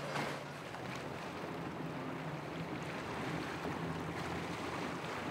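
A motorboat engine running steadily through rough inlet waves, mixed with the rush of water and wind on the microphone, and a brief surge of water noise just after the start.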